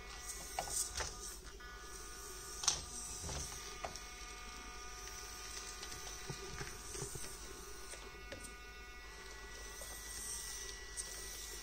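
Orlandoo Hunter 1/32 micro crawler's N20 105 rpm geared motor whining steadily as the truck crawls over rocks and gravel. Scattered sharp clicks and knocks from the tyres and chassis on stone; the loudest is about a third of the way in.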